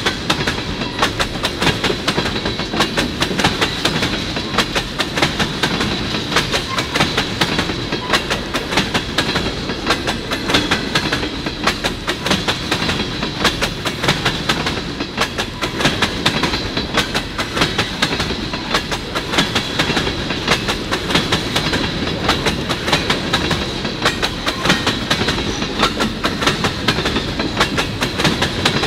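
Empty ethanol tank cars of a long freight train rolling past, their wheels clicking steadily over the rail joints over a thin, steady high whine.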